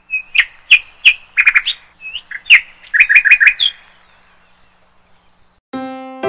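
Bird chirping in a rapid series of short, sharp calls for about three and a half seconds, then quiet. Near the end a bright keyboard melody of chime-like notes begins.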